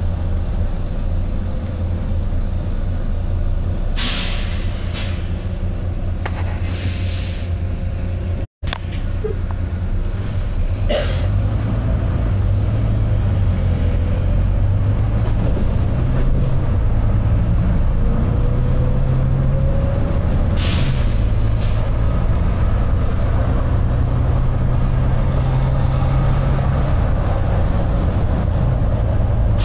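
Volvo B9TL double-decker bus heard from inside, its six-cylinder diesel running steadily, with several short hisses of compressed air from the bus's air system. The engine note strengthens about halfway through, and the sound cuts out for an instant about a third of the way in.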